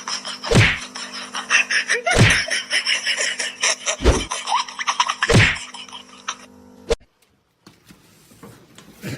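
Four heavy thumps, roughly one and a half seconds apart, over a busy, noisy background with a steady hum. The sound cuts off abruptly about seven seconds in, leaving it much quieter.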